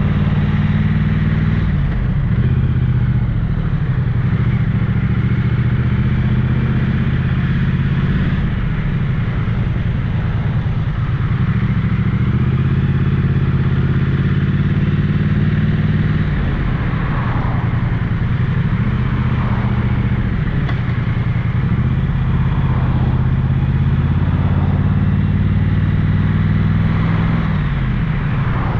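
Triumph Street Twin's 900cc parallel-twin engine and exhaust under way, the engine note climbing and dropping back several times as the rider works the throttle and changes gear, with wind and road noise.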